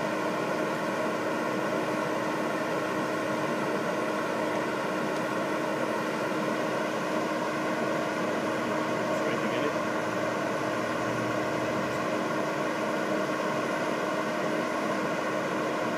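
A fire engine's engine running steadily at a fire, a constant drone with a steady hum.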